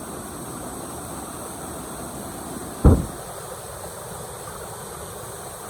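Small waterfall rushing steadily, with one dull thump about three seconds in.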